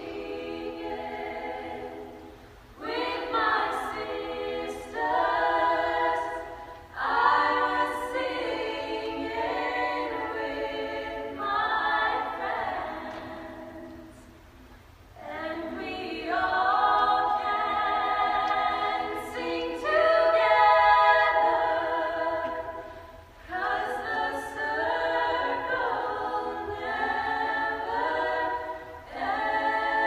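Women's choir singing a cappella in held, chordal phrases, with short breaks between phrases and a longer soft lull about halfway through.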